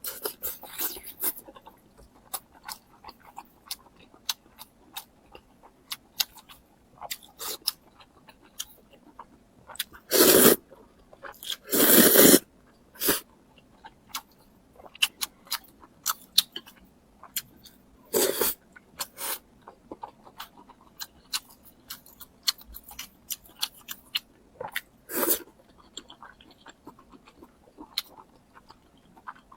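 Close-miked chewing and crunching as a person eats crispy fried pork strips (su rou). A few louder crunching bites stand out, the biggest about ten and twelve seconds in.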